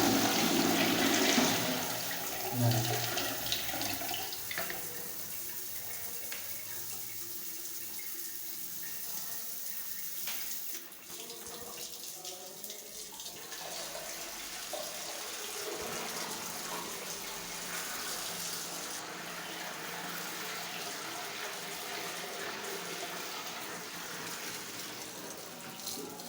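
Water running steadily from a tap, louder for the first couple of seconds; likely the newly fitted bathroom wall mixer being run.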